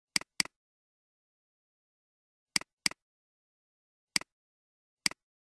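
Computer mouse clicks: six short, sharp clicks, two quick pairs near the start and about halfway, then two single clicks, with dead silence between them.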